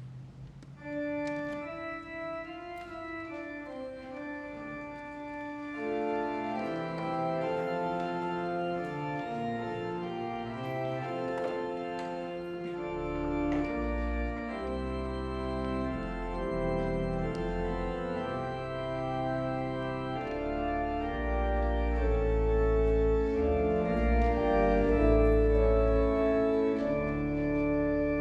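Organ playing slow, sustained chords. Deep pedal bass notes come in about halfway through, and the music grows louder toward the end.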